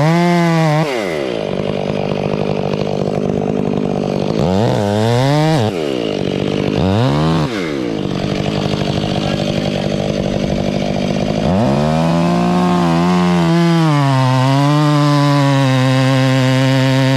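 Gasoline chainsaw running, its engine revving up and dropping back several times, then holding a steady lower pitch for the last few seconds.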